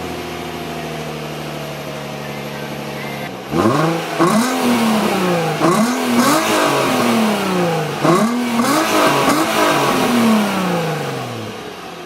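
Infiniti G35's 3.5-litre V6 just after a cold start: it holds a steady idle, then a little over three seconds in it is revved repeatedly. The pitch climbs and drops with each rev, and the last one sinks slowly back toward idle.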